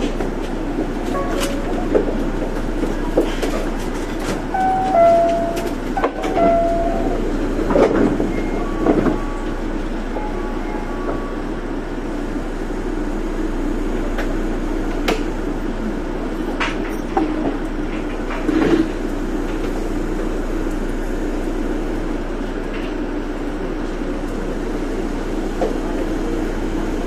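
Osaka Monorail car standing at a station, its equipment giving a steady low hum, with scattered clicks and a few short electronic tones during the first ten seconds or so.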